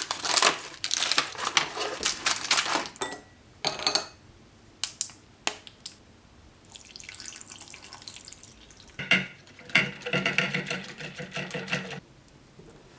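Kitchen preparation sounds: rustling and clattering at first, then a few sharp clicks, a stretch of water-like hiss, and a steadier sound with a hum in it that cuts off sharply near the end.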